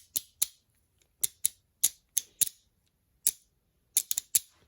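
Sharp, irregular clicks of hard plastic Beyblade Burst top parts being handled and twisted against each other, the layer's teeth catching. There are about a dozen clicks, with a quick cluster near the end.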